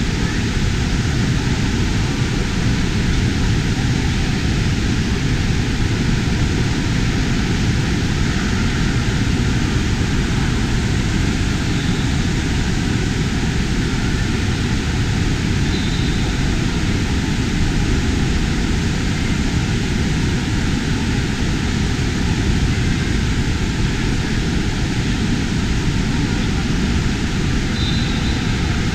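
Steady, loud rushing din of a large indoor waterpark hall, with water and air handling blending into one even roar and no distinct events.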